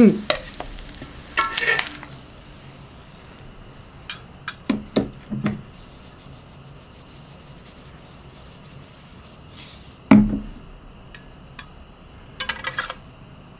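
Metal spatula and fork clinking and scraping against a ceramic plate and a griddle pan, with a few sharp clinks about four to five seconds in and a heavier knock about ten seconds in, over a faint sizzle from the hot pan.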